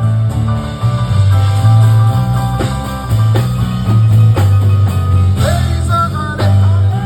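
Live band playing an instrumental passage: deep sustained bass notes, drum kit and guitar, with bending melodic notes near the end.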